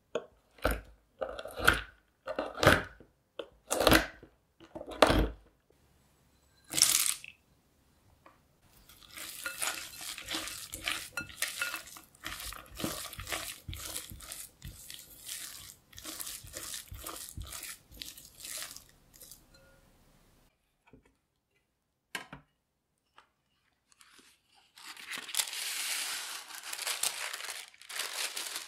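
A knife chopping shelled pistachios on a wooden cutting board, a series of sharp chops over the first seven seconds. Then a spatula stirring chopped pistachios into cream cheese in a glass bowl, scraping and squelching for about ten seconds. Near the end, parchment paper crinkles as it is pressed into a baking dish.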